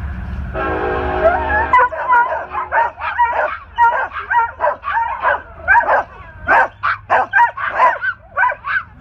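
A train horn sounds briefly for about a second, and then a group of dogs takes over, howling, yowling and yipping together in many short, rising and falling calls.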